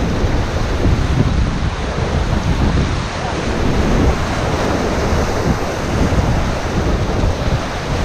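Whitewater rapids of the Indus river rushing and churning loudly and steadily around an inflatable raft, with wind buffeting the microphone.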